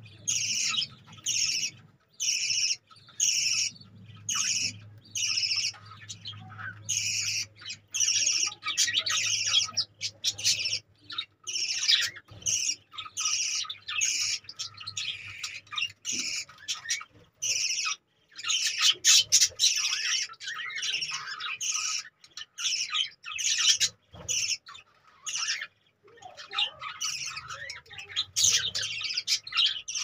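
A flock of budgerigars chattering: many short, high chirps and squawks overlapping in quick succession.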